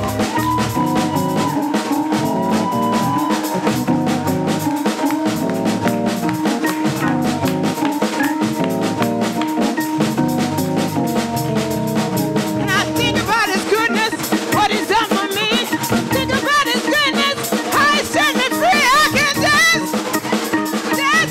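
Live gospel praise-break music: a fast drum kit with snare and bass drum driving under sustained chords. Busy, wavering high melodic runs come in about two-thirds of the way through.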